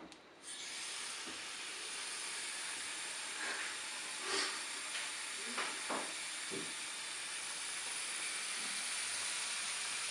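Bathroom sink tap turned on about half a second in, then water running steadily from the faucet into a sink half full of soapy water. A few brief splashes stand out about four to six and a half seconds in.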